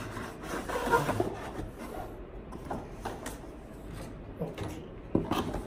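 A keyboard's cardboard box and packaging being handled: rubbing and scattered light knocks, the clearest about a second in, about three seconds in and near the end.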